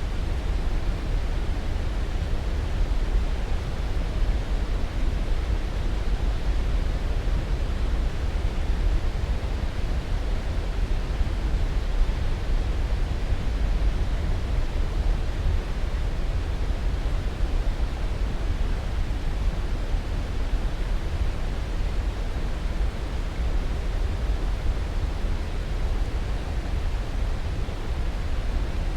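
Steady, unchanging rushing noise, heaviest in the low end and thinning toward the highs: a sleep-aid white noise track.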